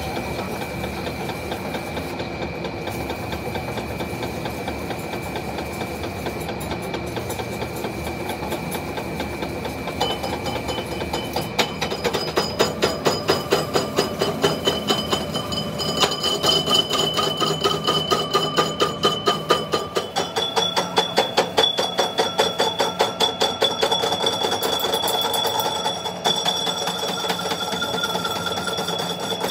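Old engine lathe running and cutting metal, with a steady high whine that shifts pitch a few times. About twelve seconds in, the sound turns into a fast regular pulsing of two to three beats a second.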